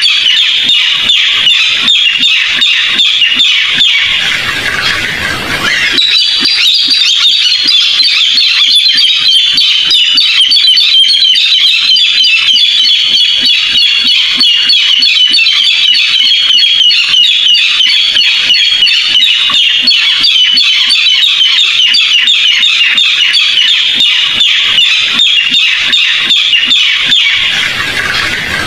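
Barred rail calling: a long, fast run of high repeated notes, with a brief break about four seconds in and another near the end.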